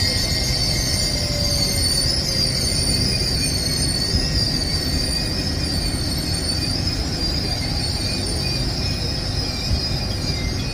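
A train running through on the line: a steady rumble of wheels on rail with a high, wavering squeal over it throughout.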